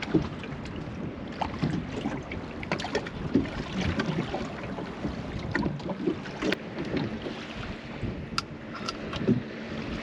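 Water lapping and slapping against the hull of a small drifting boat, with scattered light knocks and wind on the microphone.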